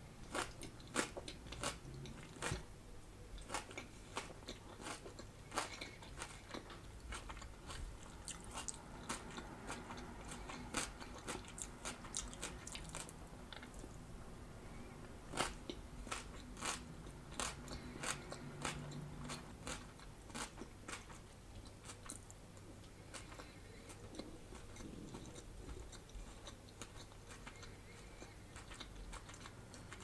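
Close-miked chewing of a mouthful of chopped raw salad: iceberg lettuce, red cabbage and peas in a creamy dressing. Many sharp, wet crunches come thick and fast at first, then thin out in the second half.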